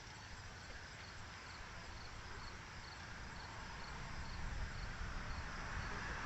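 Insects chirping in a steady, even rhythm, with wind rumbling on the microphone and building louder toward the end.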